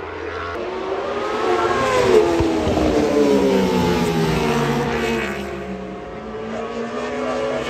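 Racing superbikes passing at speed, the engine note falling as the nearest one goes by about two seconds in. Another bike's engine swells again near the end.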